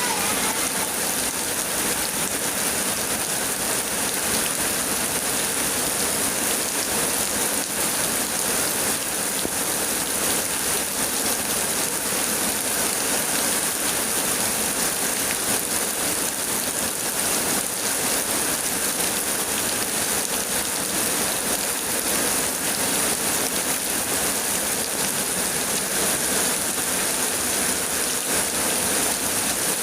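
Heavy rain pouring down, a dense, steady hiss of drops striking surfaces.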